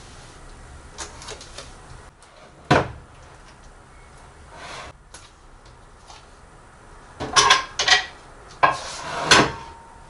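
Dishes and kitchenware knocking and clattering as they are handled and set down. One loud knock comes about a third of the way in, then a run of clatters near the end, the last one leaving a brief ringing tone.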